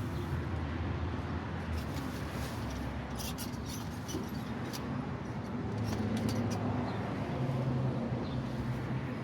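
A steady low mechanical hum, with a few scattered clicks and knocks about halfway through.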